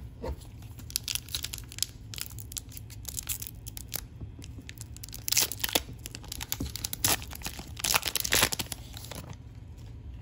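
A sealed 2020-21 Upper Deck MVP hockey card pack's wrapper crinkling and being torn open by hand, in quick crackly strokes, loudest about five and a half and eight seconds in.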